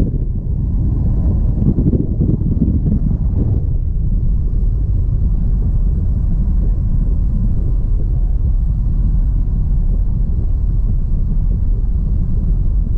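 Loud, steady drone of a small jump plane's engine and propeller, mixed with wind rushing in through the open side door, heard from inside the cabin. The rumble is rougher for the first few seconds, then evens out.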